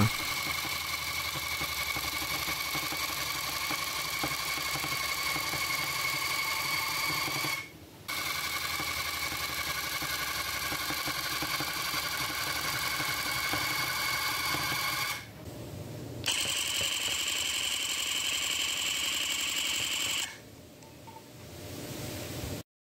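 Electric tufting gun running as it punches yarn into the tufting cloth: a steady motor whine, cutting out briefly about eight seconds in and again around fifteen seconds. It runs at a higher pitch for a few seconds after that, then drops away near the end.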